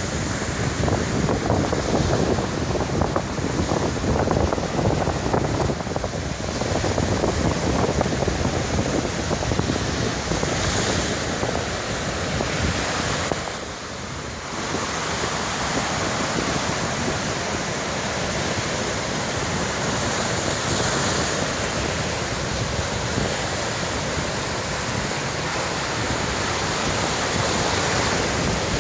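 Sea waves surging and breaking on a beach, with wind buffeting the microphone. There is a brief lull about halfway through.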